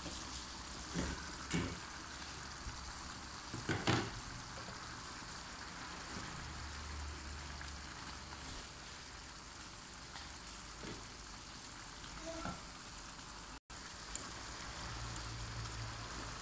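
Fresh-tomato stew sizzling and simmering in a pan, with a few short knocks and scrapes in the first four seconds as pieces of stockfish are tipped in and stirred with a wooden spoon.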